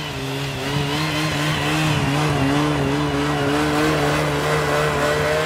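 Snowmobile engine running steadily while towing an inflatable raft over snow, its pitch wavering slightly.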